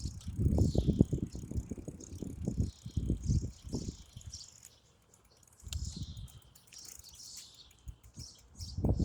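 Small birds chirping repeatedly in short high sweeps, while wind buffets the microphone in irregular low rumbling gusts, loudest in the first half and again near the end.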